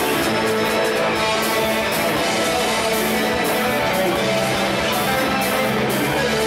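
Rock band playing live, an instrumental passage with electric bass guitar, guitar and drums and no singing.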